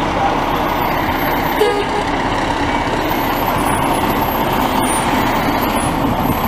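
Aerial ladder fire truck's diesel engine pulling out and driving past close by, over steady street traffic.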